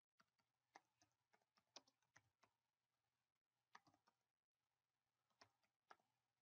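Faint keystrokes on a computer keyboard, typed in three short runs with pauses between.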